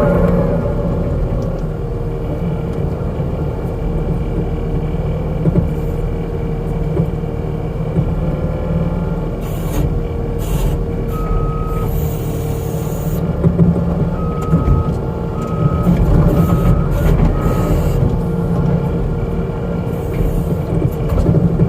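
New Holland skid steer's diesel engine running steadily as the machine works. Its backup alarm sounds around the middle: one longer beep, then four short beeps.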